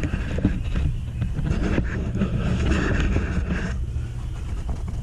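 A machine running steadily with a low hum, overlaid for the first three and a half seconds by rustling, wind noise on the microphone and light knocks.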